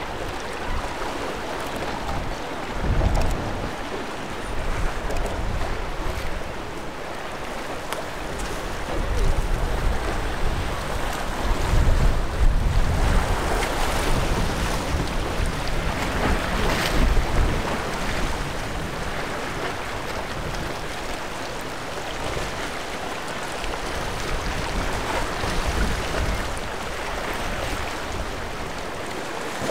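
Steady rush of choppy inlet water and surf, with wind gusting against the microphone in low rumbles a few times, strongest a little under halfway through.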